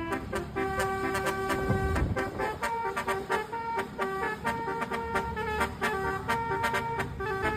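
Basuri multi-tone electric bus horn playing a 'telolet' tune: a quick run of short, steady horn notes, several pitches sounding together, switching every fraction of a second. A brief low rumble about two seconds in.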